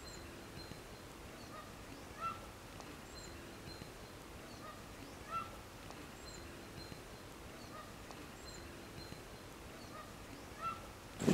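Faint low hiss with short, high chirping calls of a small animal or bird repeating irregularly every second or two; the clearest come about two seconds in and about five seconds in.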